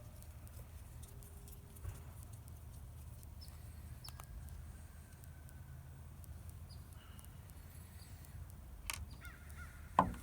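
Faint clicks and taps from a G-Shock watch and its small parts being handled during disassembly, over a steady low hum. Sharper clicks about nine and ten seconds in.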